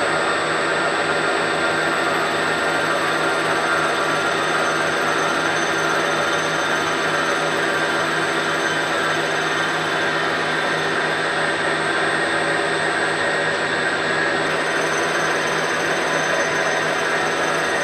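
Milling machine running steadily with a fine-tooth slitting saw feeding into a potato clamped in the vise, a constant mechanical whine made of several steady pitches.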